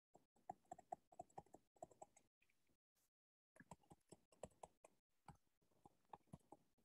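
Faint, irregular taps and clicks of a stylus pen on a tablet screen while an equation is handwritten, in short clusters with a brief pause about three seconds in.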